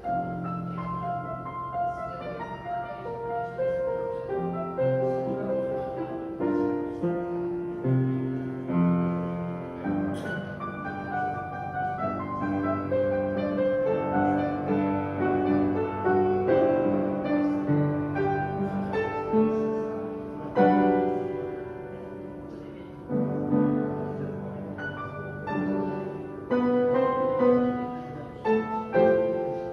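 Piano playing a hymn arrangement, with held chords and a melody line moving over them.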